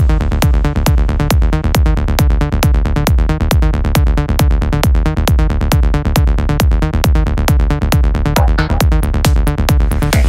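Psytrance: a fast, steady electronic kick drum and bass pulse under layered synths, with a rising sweep coming in about eight seconds in.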